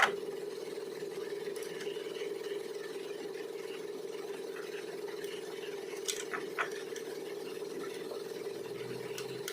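A steady mechanical hum with a few light clicks and taps: one near the start, one at about a second and a half, and two around six seconds in.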